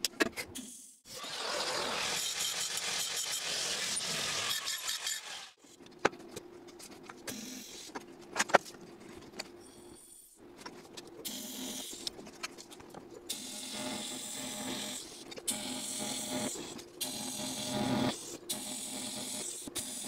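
A power tool running in several spells of a few seconds, with sharp clicks and clatter of metal parts between them.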